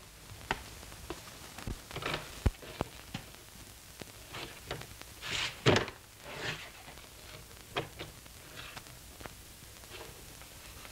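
Scattered knocks, thuds and rustling as a person clambers up onto the top of a door, with the loudest thud just before six seconds in.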